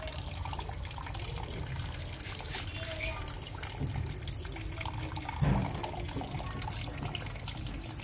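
A thin stream of water trickling and splashing into a plastic tub where a rose-ringed parakeet is bathing, with a louder brief thud a little past halfway.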